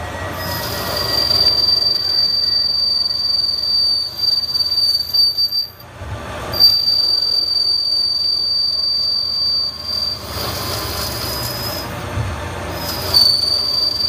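Haas SL10 CNC lathe turning with a button tool and giving a steady high-pitched squeal from the cut. The squeal drops out briefly about six seconds in, is weaker for a few seconds near the end, then comes back. The squeal is chatter from too slow a feedrate, which the machinist says should have been 0.02 inch per revolution.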